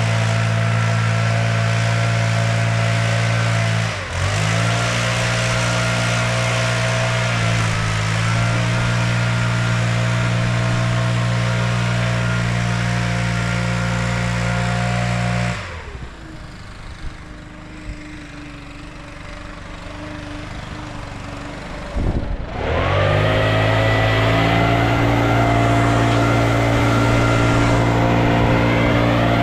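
An engine running steadily at high speed. It dips briefly twice, drops to a much quieter idle for several seconds, then revs back up and holds steady.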